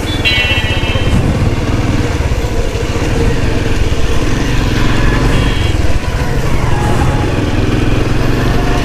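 Motorcycle riding through traffic: a steady engine and road rumble, with short high horn beeps just after the start and again about five seconds in.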